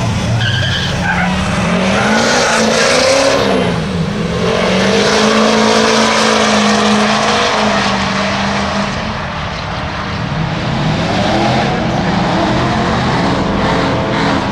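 A pickup truck and a car launching off a drag strip start line and accelerating hard down the track, their engines revving up and dropping back in pitch as they run through the gears.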